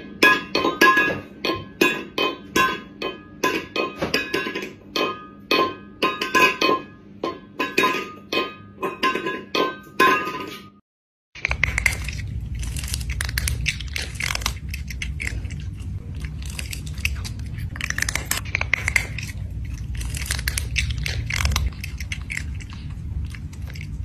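Short bouncy music with evenly repeated plucked notes, then after a brief silence, eating sounds: irregular wet chewing and clinking over a low steady hum.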